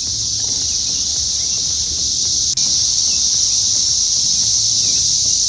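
Loud chorus of Brood X periodical cicadas: a dense, steady high-pitched buzz without a break.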